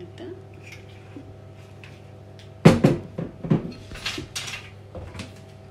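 Metal kitchenware clattering around a stainless steel roasting tray: a loud sharp knock and rattle about two and a half seconds in, then a few more knocks and scraping sounds.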